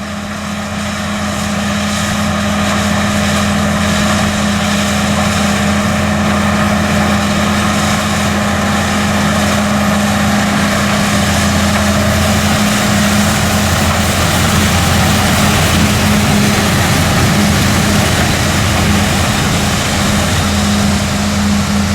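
Case IH 215 Magnum tractor and BOB 46 pull-type bean combine running while harvesting kidney beans: a steady engine and machinery hum with a broad mechanical rush, growing louder over the first few seconds, then holding steady.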